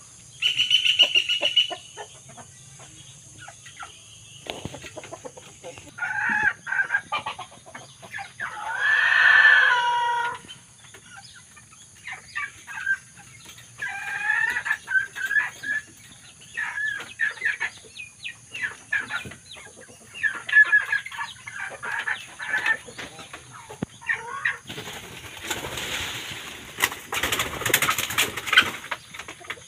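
Young red junglefowl calling and clucking, with a rooster crowing about nine seconds in, a strong call that falls in pitch. Near the end comes a few seconds of noisy rustling.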